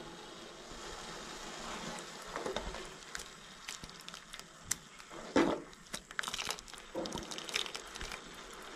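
Ladle stirring a thin okra curry in a metal pot: soft scrapes and clinks against the pot and the splash of curry poured back from the ladle, scattered and irregular, loudest about five seconds in.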